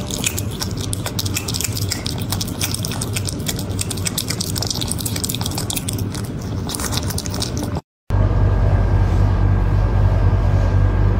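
Rapid, dense wet clicking and crackling from an otter for about eight seconds, then a sudden switch to a steady low hum.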